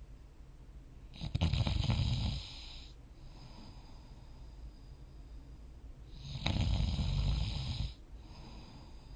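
A person snoring in sleep: two loud snores about five seconds apart, each lasting a little over a second, with quieter breathing in between.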